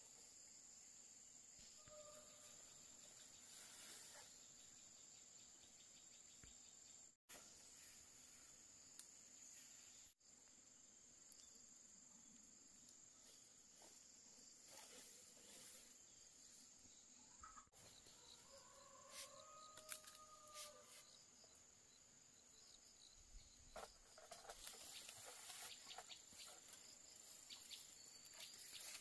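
Faint, steady, high-pitched insect chirring in near silence. A short pitched call comes about two seconds in and a longer one around twenty seconds in, with light rustling and clicks near the end.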